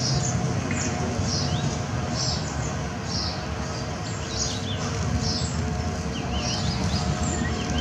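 Asian small-clawed otters calling with short, high-pitched chirps repeated steadily, about one every half second, with a few wavering squeaks among them. A steady low rumble runs underneath.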